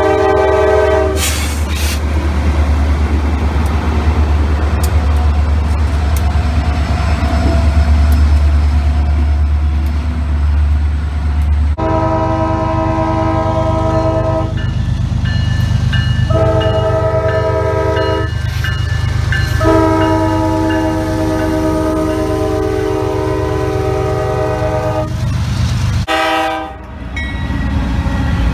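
A GE D9-40CW diesel locomotive's horn chord ends about a second in, then its V16 engine rumbles heavily as it passes close by. After an abrupt change, a second Norfolk Southern GE freight locomotive leading an intermodal train sounds its multi-chime air horn in three blasts, long, shorter, then longest, over the rumble of the approaching train.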